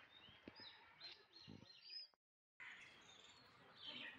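Faint birds chirping in the trees, a scattering of short calls over quiet outdoor hiss, broken by about half a second of dead silence a little after two seconds in.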